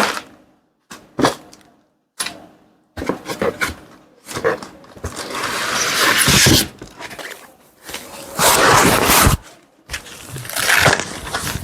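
Cardboard box and packaging of a soundbar being unpacked. There are a few sharp knocks and clicks in the first seconds, then three long spells of scraping and rustling as the contents are pulled out.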